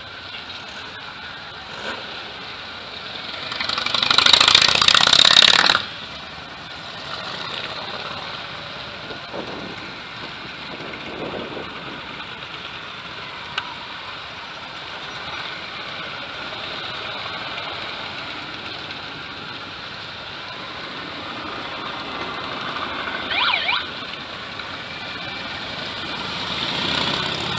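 A procession of cruiser and touring motorcycles riding past one after another, their engines running steadily. One passes much louder about four seconds in. A brief rising and falling tone sounds near the twenty-three-second mark, and the engine noise swells again near the end.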